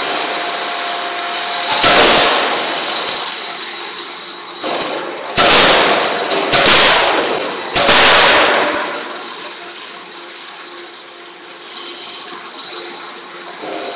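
Anyang C86Y fully hydraulic die forging hammer striking hot steel in its die: one heavy blow about two seconds in, then three more in quick succession between about five and eight seconds, each ringing on through the shop hall. A steady high-pitched tone runs underneath.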